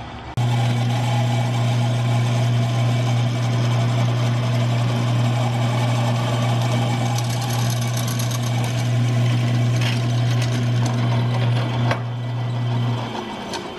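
Drill press running with a steady electric motor hum while its twist bit drills into a steel tube. The hum cuts off near the end.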